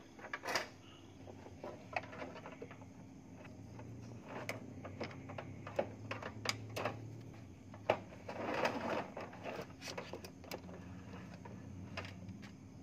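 Irregular clicks, taps and scraping as a wire is pulled through from under a car's fender, with a longer rustling scrape about eight and a half seconds in, over a faint low hum.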